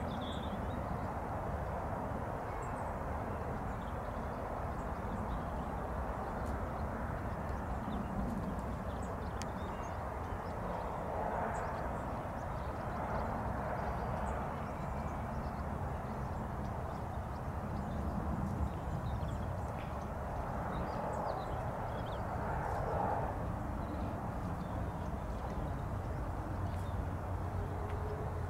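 Steady distant rush of a Boeing 757's jet engines on final approach, mixed with wind buffeting the microphone; a faint steady engine tone comes in near the end as the airliner touches down.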